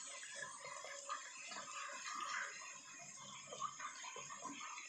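Nuggets deep-frying in a pan of oil: a steady sizzle with many small crackles and pops, the oil foaming heavily.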